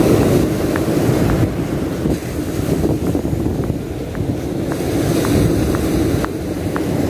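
Sea surf washing on the beach, with wind buffeting the microphone. A faint, light tick repeats about twice a second.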